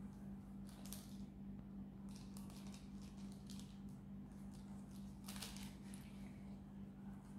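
Wax crayon rubbing on a thin paper sheet in short, scratchy strokes, the longest and loudest about five and a half seconds in, over a steady low hum.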